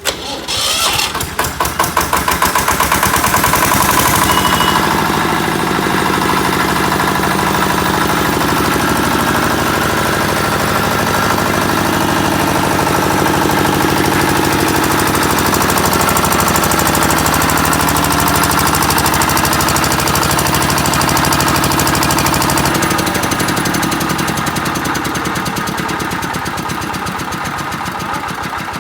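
Air-cooled diesel generator set's engine starting on its self-starter, uneven for the first couple of seconds as it fires up, then running steadily. The sound eases somewhat over the last several seconds.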